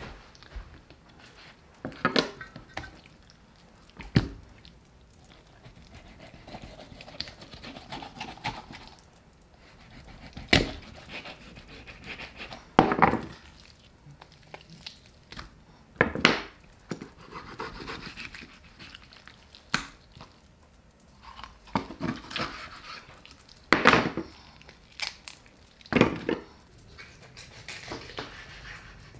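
Food-preparation handling: about nine sharp knocks of utensils or items set down on a hard surface at irregular intervals, with soft rustling and rubbing between them.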